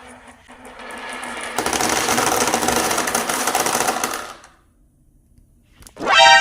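Many marbles rolling and clattering down wooden marble-run tracks, a dense rapid rattle that grows louder about a second and a half in and stops about four seconds in. Near the end comes a short pitched sound rising in pitch.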